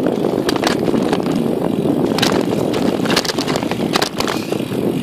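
Wind buffeting the microphone and the tyre rumble of a mountain bike rolling fast over a rough lane. Several sharp rattles and knocks come at irregular moments as the bike jolts over bumps.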